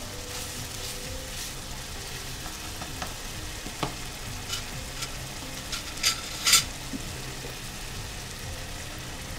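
Sauce frying and sizzling in a wok while a spatula stirs it, with a couple of sharp clinks about six seconds in.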